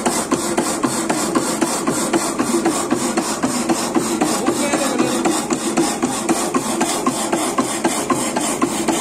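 Power hacksaw blade cutting through metal, with an even, repeating rhythm of strokes.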